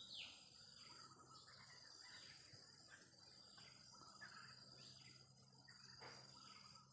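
Wild oriental magpie-robin (kacer) calling faintly: a series of short, falling whistled notes, about one a second. Underneath runs a steady high insect drone with a pulsing higher chirr.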